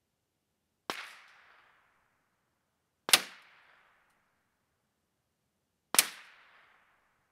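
Three shots from a Remington Model 597 semi-automatic .22 Long Rifle, two to three seconds apart. Each is a sharp crack followed by an echo that dies away over about a second.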